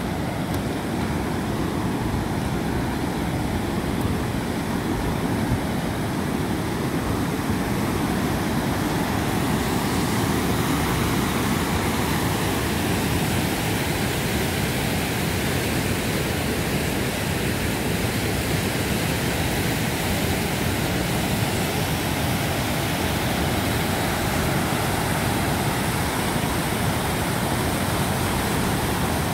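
Gardon river in flood after heavy storms, its muddy water rushing over a rock weir and fish pass. A steady, unbroken white-water rush.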